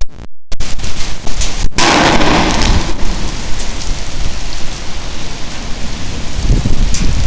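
Heavy rain and strong wind buffeting the microphone with a low rumble, a louder gust about two seconds in. The sound cuts out briefly a few times in the first two seconds.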